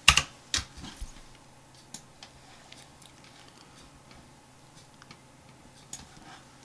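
Computer keyboard and mouse clicks: two sharp key presses in the first half-second, as a value is typed and entered, then scattered lighter clicks.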